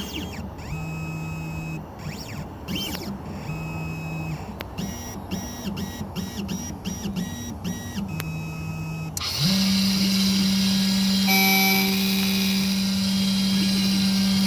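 Key-cutting machine cutting a tubular key blank. First the machine's motors move in short steps, each a steady tone at a changing pitch with brief glides between them. About nine seconds in, the cutter starts and runs with a steady, louder hum and a hissing cutting noise.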